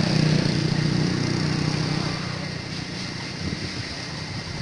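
A small engine running with a steady low drone, loudest in the first two seconds and then fading.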